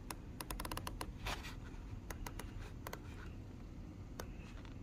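Unidirectional diver's bezel of an Oris Aquis Upcycle 36.5 mm watch turned by hand back toward its start position: small ratcheting clicks, a quick run of them about half a second in, then scattered clicks in ones and twos.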